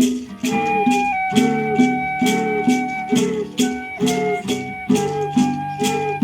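Instrumental music: a steady shaker beat over a repeating plucked-string figure, with long held high notes that change pitch a few times.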